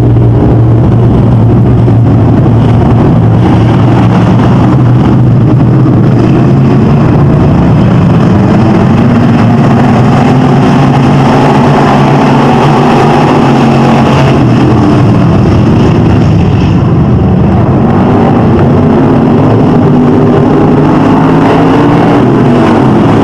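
A pack of dirt-track stock cars racing at full throttle around a dirt oval, several engines running loud at once. Their pitch rises and falls as the cars accelerate and pass.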